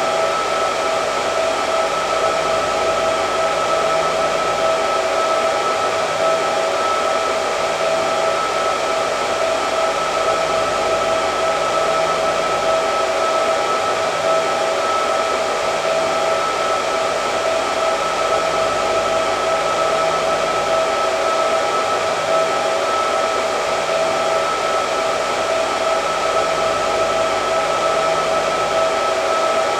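Hair dryer running steadily: a constant rush of air with a steady motor whine.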